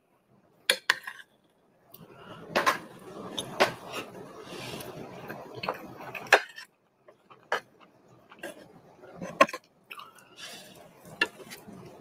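Large metal spoon clinking and scraping against a ceramic plate while scooping mac and cheese: a series of sharp clinks a second or so apart, with soft scraping between them.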